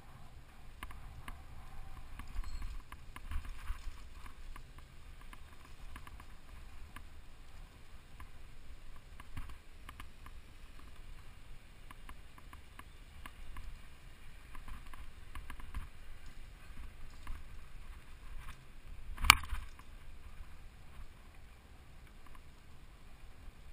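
A mountain bike rides fast over a dirt forest trail, heard from a camera mounted on the bike. There is a low wind rumble on the microphone, with tyre noise and many small rattles and knocks from the bumps. Late on comes one sharp, loud knock.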